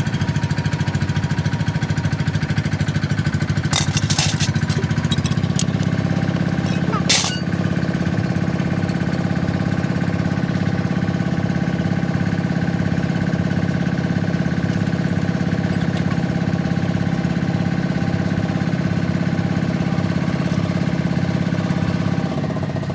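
An engine running steadily, with a couple of sharp clinks around four seconds in and one about seven seconds in.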